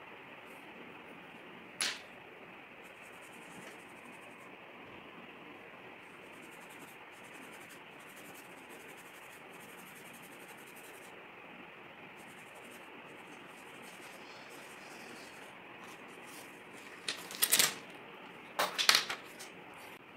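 Steady hiss under faint, irregular pencil strokes scratching on paper. There is a sharp click about two seconds in, and a cluster of louder clicks and taps near the end.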